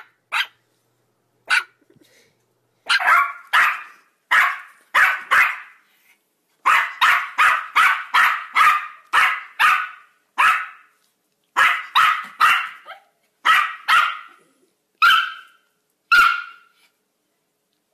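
Yorkshire Terrier barking: a couple of single sharp barks, then a long run of short, high-pitched barks about two a second.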